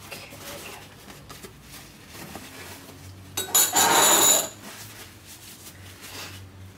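Kitchen utensils scraping and clinking against a mixing bowl while soap batter is portioned out, with one loud scrape lasting about a second in the middle.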